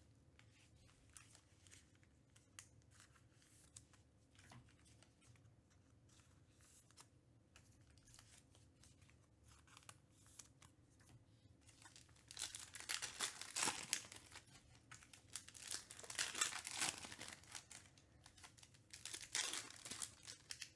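Foil wrappers of Panini Select basketball card packs being torn open and crinkled, in loud bouts starting about twelve seconds in. Before that, only faint light taps as the packs are moved around on the table.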